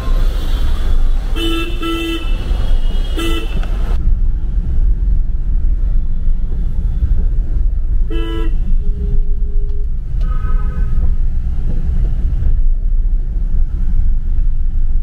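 Car horns honking in traffic: several short blasts from more than one horn, over a steady low rumble of engines and road noise.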